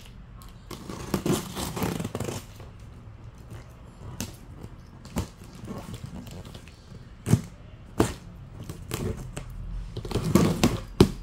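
Clear packing tape on a cardboard shipping box being slit with a pen tip and peeled off: scattered scrapes and taps on the cardboard, with stretches of tape tearing about a second in and again near the end.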